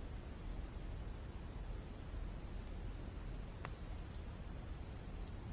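Quiet woodland ambience: a low, steady rumble with faint, high chirps repeating throughout, and one short click about three and a half seconds in.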